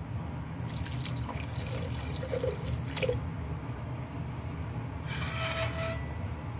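Liquid splashing and trickling into a glass blender jar, over a steady low hum. A short squeaky tone follows near the end.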